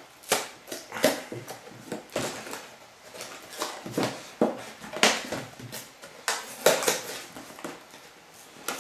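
Cardboard product box handled and opened by hand: an irregular run of scrapes, taps and rustles as it is turned over and its end flap pulled open, the loudest about five seconds in.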